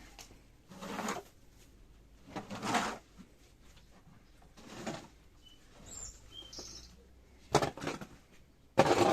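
A series of irregular swishing, rustling noises, the last two near the end the loudest, with a few brief high bird chirps in the middle.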